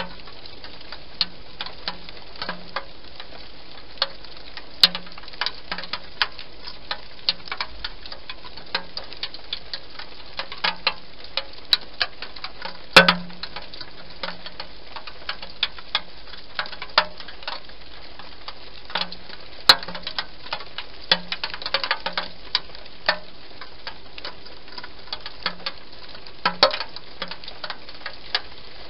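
Hedgehog eating inside a plastic feeding box: irregular sharp crunches and clicks as it chews its food, some single and some in quick runs, the loudest about 13 s in.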